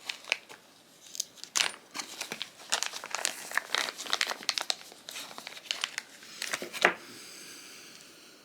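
Crinkling rustle with many small irregular clicks and taps from folding-knife parts and tools being handled during reassembly of the pivot. A soft steady hiss takes over for the last second or so.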